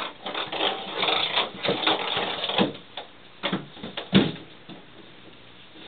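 Ping pong ball rattling and bouncing around a bathtub as kittens bat at it: a quick run of clicks and taps over the first few seconds, then a few separate knocks, the loudest a little after four seconds in.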